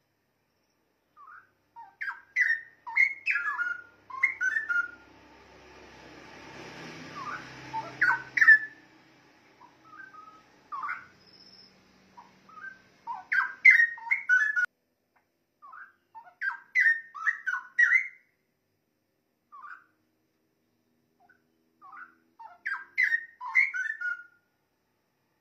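Straw-headed bulbul (cucak rowo) singing: loud phrases of rich, fast-sliding whistled notes, delivered in groups a few seconds long with short pauses between. A soft rushing noise sits under the song for a few seconds in the first half.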